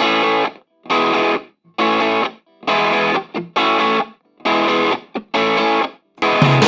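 Rock song intro on distorted electric guitar: short chord stabs about once a second, each cut off sharply with a gap of silence between. Near the end the stabs give way to continuous playing as the full band comes in.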